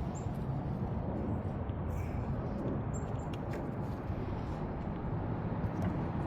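Steady low background rumble with a few faint, small clicks and ticks; no distinct event stands out.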